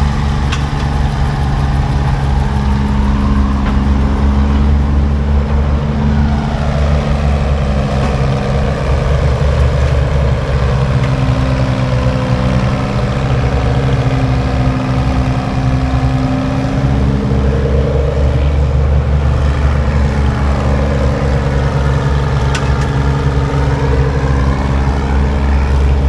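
A large engine running steadily at a constant idle speed, with a deep even hum and fainter tones above it that slowly rise and fall.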